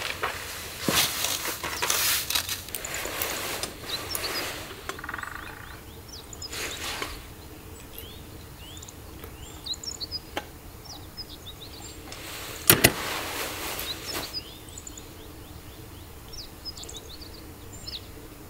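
Small birds chirping in short, rising notes, over bursts of rustling and handling noise in the first few seconds. A single sharp knock, followed by more rustling, comes about two-thirds of the way through.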